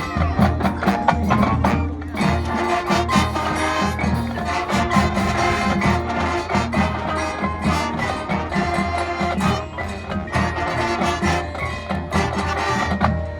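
Marching band playing, with brass and woodwind notes held over drums and other percussion keeping a steady beat.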